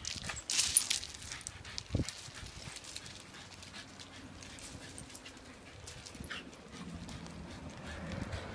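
A dog's paws on loose gravel: scattered crunches and knocks as it leaps at a toy hanging from a tree and lands, with a sharp knock about two seconds in.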